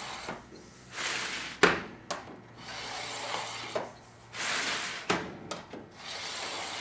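A metal scribe scratching layout lines into sheet metal, drawn along the edge in about five scraping strokes of roughly a second each, with a sharp knock of the tool on the metal about one and a half seconds in and again near five seconds.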